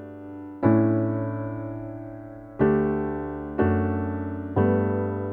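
Background music: slow piano chords, four in all, each struck and left to ring and fade before the next.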